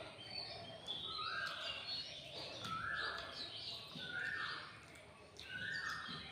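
A bird calling over and over, about one call every second and a half, each call a short note that steps up to a higher held note, with fainter chirps above it.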